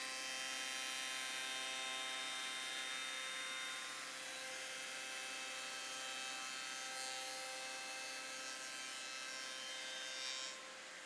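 Electric motor of a woodworking slotting machine running with a steady hum while a stopped slot is cut. The hum eases slightly about four seconds in and again near the end.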